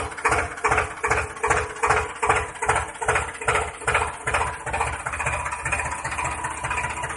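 Engine chugging, about two even beats a second, settling into a steadier, faster run about five seconds in.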